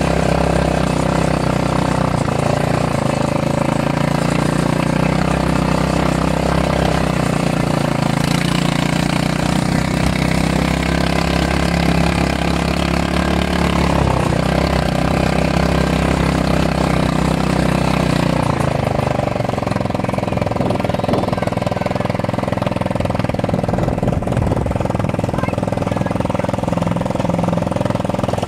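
All-terrain vehicle (ATV) engines running steadily while riding along a gravel road. The engine note changes about two-thirds of the way through.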